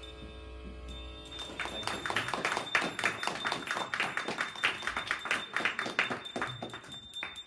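Harmonica holding a chord for about a second. Then, from a little over a second in, a dense, irregular run of sharp taps, several a second, which makes up the loudest part.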